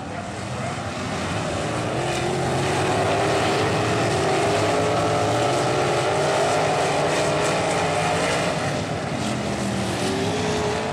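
Several wingless sprint cars' V8 engines racing on a dirt oval. The sound builds over the first few seconds as the pack comes by, with overlapping engine notes rising and falling as the cars get on and off the throttle. A new rising note enters near the end.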